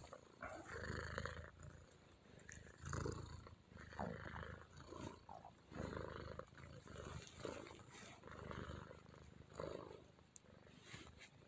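Pet cat purring quietly, the purr swelling and easing about once every second or so with its breaths.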